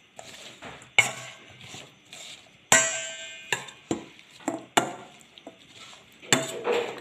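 Kitchen utensils clinking and knocking against a bowl, with about seven sharp strikes at uneven intervals. One strike a little under three seconds in rings on briefly like metal.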